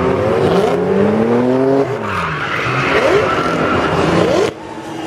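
Several drift cars sliding together, their engines revving up and down over one another at high revs, with tyre noise from the slides. The sound drops sharply about four and a half seconds in.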